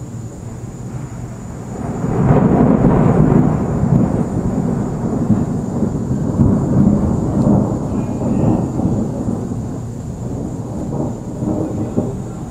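Rolling thunder from a dry thunderstorm: a deep rumble swells about two seconds in, is loudest for the next couple of seconds, then rolls on in uneven waves and slowly fades.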